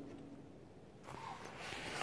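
Faint background, then from about a second in a rustling, scraping handling noise that grows louder as the camera is moved and swung down toward the ground.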